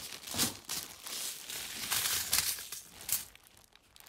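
Plastic packaging crinkling and rustling as it is handled and opened, in a run of irregular crackly bursts that dies down near the end.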